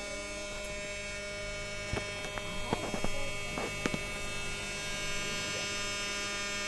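Battery-powered toy vacuum cleaner's small motor running with a steady hum. A few light clicks and rattles come between about two and four seconds in.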